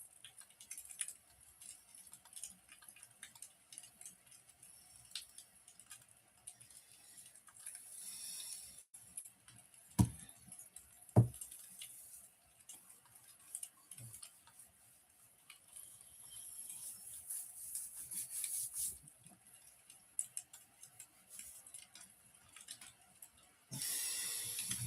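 Wood fire crackling in a fireplace: scattered small ticks and clicks, two louder pops about ten and eleven seconds in, and stretches of soft hissing.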